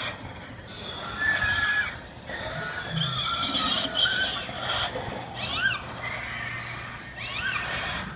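Dinosaur calls played from an exhibit's speakers: shrill, whinny-like cries that rise and fall, repeating every couple of seconds, with held high notes between them over a low hum.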